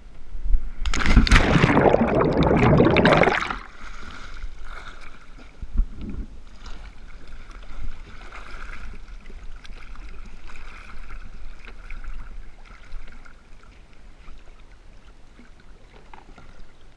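Loud rushing and splashing of water close to the microphone for about three seconds, then quieter lapping of water with a boat's outboard motor running faintly.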